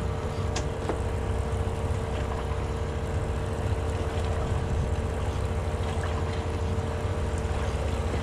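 Boat engine running steadily: a low drone with a constant whine above it.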